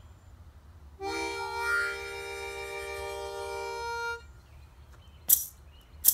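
Harmonica held in cupped hands, sounding one long sustained chord of several notes that starts about a second in and lasts about three seconds, swelling partway through. Two sharp percussive hits follow near the end, louder than the harmonica.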